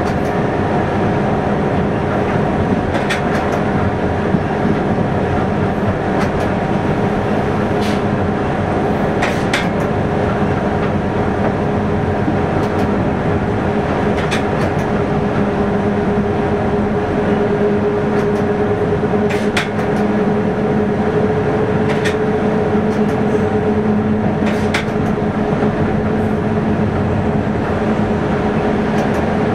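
Local train running at steady speed, heard inside the driver's cab: a continuous running noise with a steady two-note drone. Sharp clicks from the wheels on the track come at irregular intervals every few seconds.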